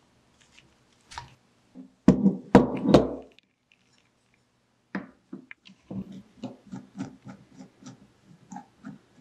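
Hands handling the parts of an antique Stromberg-Carlson telephone receiver. A cluster of loud knocks and clatter comes about two seconds in. From about halfway, a run of small, evenly spaced clicks at roughly three a second follows as a screwdriver works the screws in the receiver's metal cup.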